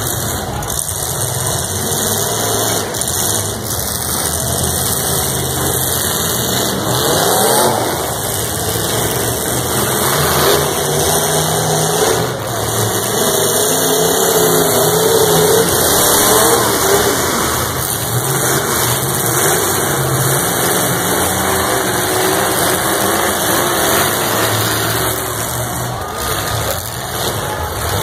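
Several pickup truck engines revving and running loud, their pitch rising and falling as they accelerate, with a few bangs from trucks ramming each other.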